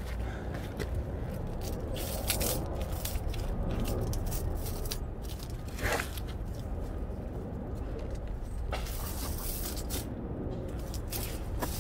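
Cable snow chain being handled: scattered scrapes and clicks as the chain and its buckle are worked around the tire, over a steady low rumble.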